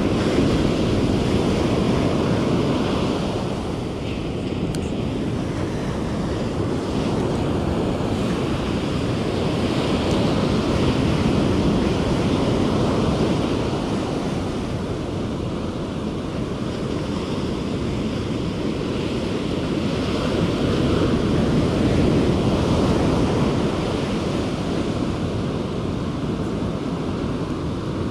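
Ocean surf breaking and washing up a sandy beach in a steady rush, swelling and easing every ten seconds or so, with wind buffeting the microphone.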